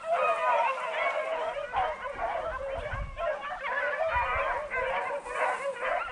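A pack of beagles baying in full cry as they run a rabbit's trail, several voices overlapping without a break. Wind gusts on the microphone underneath.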